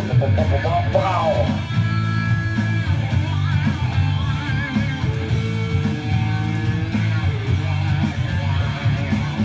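Rock music with electric guitar playing.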